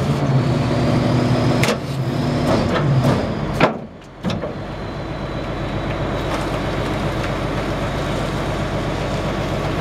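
McNeilus rear-loader compactor running a packing cycle, its hydraulics driven by the truck's Cummins 8.3-litre six-cylinder diesel and making a steady drone as the packer blade sweeps through the hopper. A sharp metallic clunk comes about three and a half seconds in as the blade shifts, then a steadier running sound.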